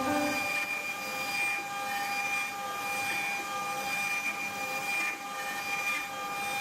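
Small CNC router running with a steady motor whine, its pitch dipping briefly and regularly as the machine works the wood.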